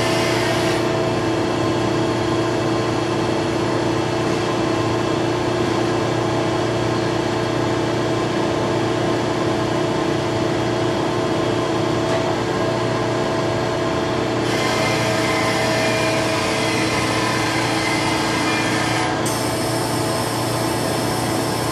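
Okuma MCR-B II double-column machining center running through an automatic head change: a steady machine hum with several fixed tones, its higher hiss shifting a few times as the machine moves.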